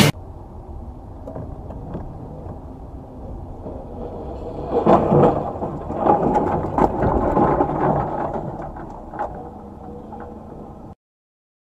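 Dashcam recording from inside a moving car: a steady low road rumble, with a cluster of loud thumps and knocks about five to seven seconds in. The sound cuts off abruptly near the end.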